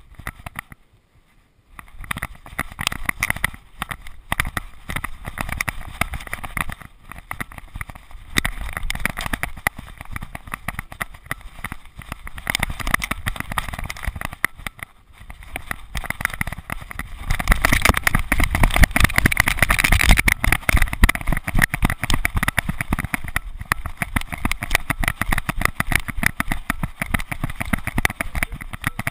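Rough, rumbling handling noise from a GoPro camera strapped to a moving Border Terrier: the housing jolting and rubbing with the dog's movement, with wind on the microphone. It starts about two seconds in and is loudest for a few seconds a little past the middle.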